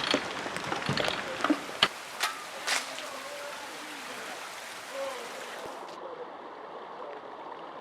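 Floodwater rushing through a street as a steady noisy rush, with several sharp knocks in the first three seconds.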